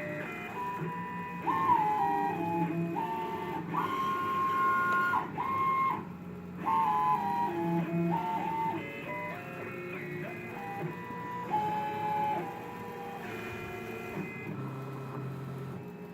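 CNC machine's stepper motors whining as the axes move, the pitch jumping between steady tones with each change of move and speed. This is the noise that the new machine's owner calls funny.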